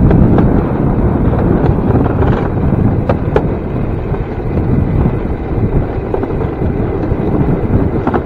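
Wind buffeting the microphone over the low rumble of a DIY electric railcart's wheels rolling along railroad track, with two sharp clicks about three seconds in.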